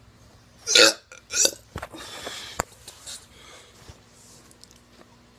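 A teenager forcing out short burps: a loud, brief one falling in pitch under a second in, a shorter one about half a second later, then about half a second of hiss.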